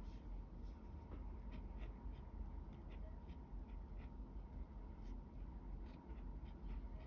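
Pen tip scratching on paper in short, separate strokes as Chinese characters are handwritten, over a faint low hum.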